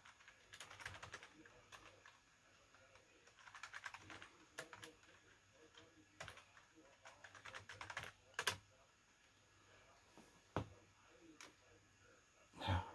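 Faint typing on a computer keyboard, key clicks in short runs and single strokes, logging in at a server's console login prompt. A louder single bump near the end.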